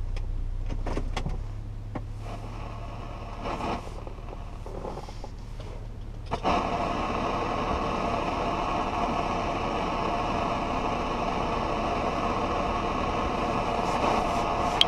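Inside a car: a low steady hum with a few faint clicks, then about six seconds in a louder steady rushing noise switches on suddenly and holds, with a few handling clicks near the end.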